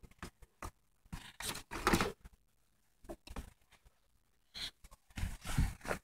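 Handling noise and rustling close to a phone's microphone: scattered clicks and two longer rustling bursts, one about a second and a half in and one near the end, as the phone is moved about against fabric and a bag.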